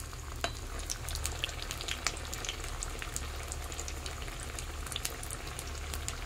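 Urad dal fritters deep-frying in hot oil in an iron kadhai: a steady sizzle with scattered sharp crackles and pops, over a low steady hum.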